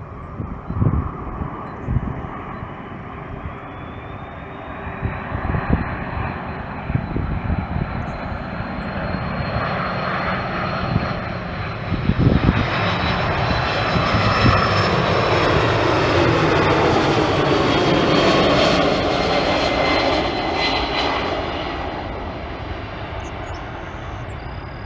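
Aer Lingus Airbus A330's jet engines on final approach, growing louder with a high, steady whine as the airliner passes overhead, loudest a little past the middle, then easing off as it flares over the runway.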